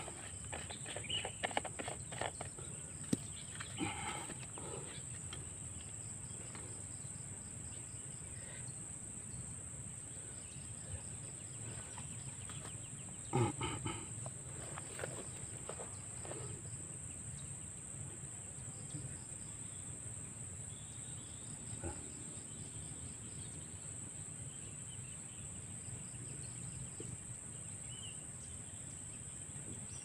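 Insects chirring steadily at a high pitch in grass, with scattered small clicks and rustles of hands working a wire snare; the loudest knock comes about halfway through.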